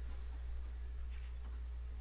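Phone line noise: a steady low hum with a faint hiss on a call that is on hold, a line the caller himself calls very noisy.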